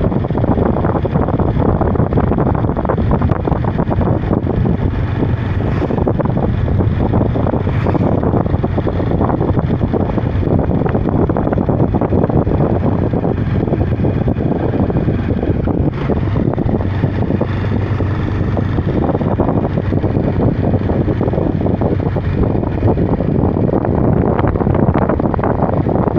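Heavy, steady wind buffeting on the phone's microphone on a moving motorcycle, with the motorcycle's engine running underneath.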